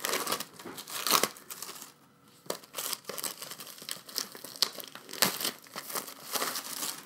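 Album packaging crinkling and tearing as it is handled and pulled open, in irregular crackly bursts with a short pause about two seconds in.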